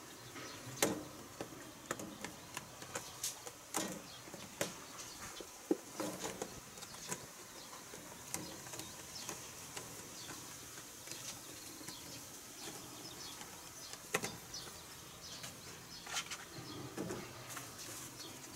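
Scattered light clicks and taps as a cardboard box is pushed onto a wire-mesh shelf and handled, over a low steady background. The clicks are thickest in the first several seconds, with a few more near the end.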